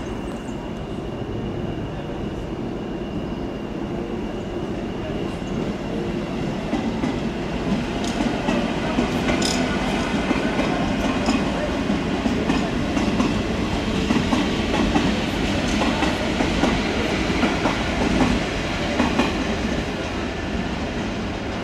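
The eight-cylinder English Electric diesel engine of a CP 1400-class shunting locomotive running steadily. Train wheels clatter over the rail joints on top of it, growing louder about a third of the way in and easing off near the end.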